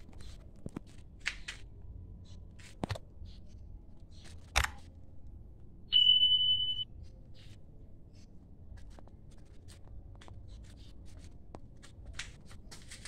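A sharp click, then about a second and a half later a single high electronic ding that holds steady for just under a second: the sound effect of an on-screen subscribe-and-notification-bell animation. Faint scattered clicks and rustles sit around them.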